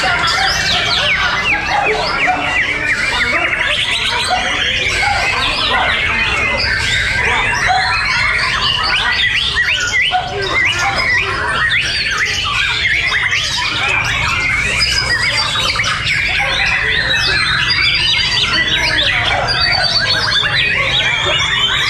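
Many white-rumped shamas (murai batu) singing at once in a contest, a dense, unbroken chorus of overlapping whistles and fast, sliding notes.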